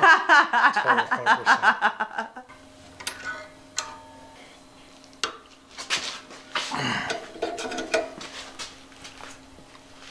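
A man laughing for about two seconds. Then come scattered metal clinks and taps as a tube-flaring tool is fitted onto a brass gas line clamped in a bench vise.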